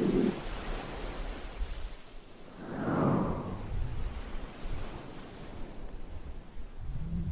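Sea surf: a steady hiss of waves, with one wave swelling and washing away about three seconds in.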